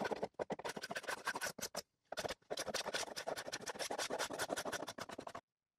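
Hand-held pull scraper scraping dried wood glue off a knotty alder shelf in quick, short, scratchy strokes. There is a brief pause about two seconds in, and the scraping stops shortly before the end.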